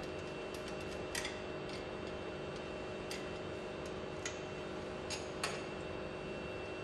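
Scattered light clicks and taps of hand tools on the pump's metal tie rods as they are being removed, about six in all at uneven intervals, over a steady hum.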